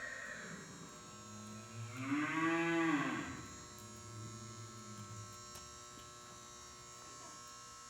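One long, drawn-out call from a large animal, rising then falling in pitch, about two seconds in, over a steady electrical hum.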